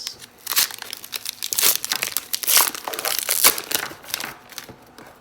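Trading card pack wrapper crinkling and tearing as the pack is ripped open, in quick irregular crackles that die down near the end.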